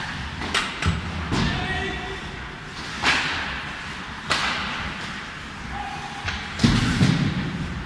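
Ice hockey play: about five sharp knocks and cracks of sticks and puck against ice and boards, each ringing in the rink's large hall. The loudest and heaviest thud comes near the end.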